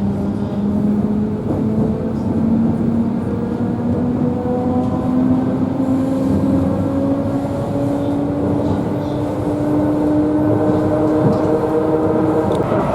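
Suburban electric train's traction motors whining, the whine rising slowly and steadily in pitch as the train picks up speed, over the constant rumble of the wheels on the rails, heard from inside the carriage.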